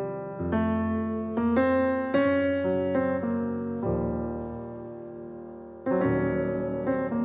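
Slow instrumental piano music: single notes and chords played one after another, a held chord fading out about four seconds in, then a new chord struck near six seconds.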